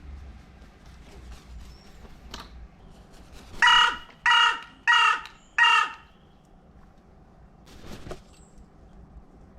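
Carrion crow cawing four times in a quick, evenly spaced series, each caw short and harsh. A fainter, shorter call follows a couple of seconds later.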